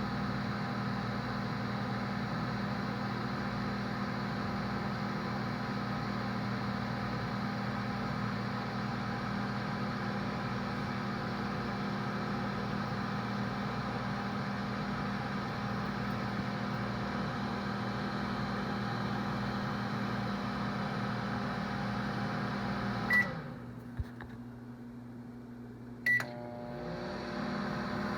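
Microwave oven running with a steady hum. Near the end it beeps and the hum cuts out, a click follows, and after a second beep about three seconds later the hum starts up again.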